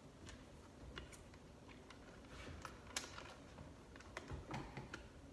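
Faint, irregular small clicks and taps of hands handling the garbage disposal's electrical wiring and connectors, with a sharper click about three seconds in and a short flurry near the end.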